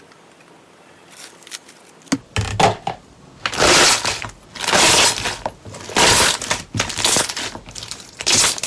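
Slime being pressed and squeezed by hand, giving loud crackling, crunching bursts roughly once a second that start about two seconds in.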